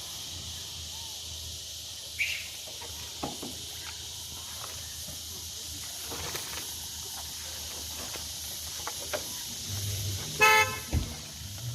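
A vehicle horn gives a short honk about ten seconds in, the loudest sound here, over a steady high-pitched hiss and a few light clicks.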